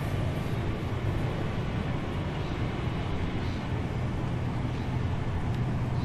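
Steady low mechanical rumble with a constant low hum, and a few faint high chirps now and then.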